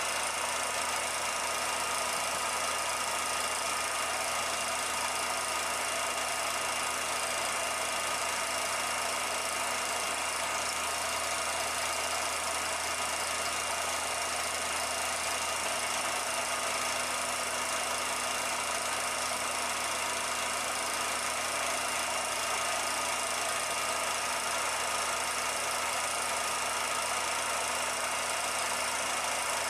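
Film projector running: a steady mechanical whir with a constant hum and no change.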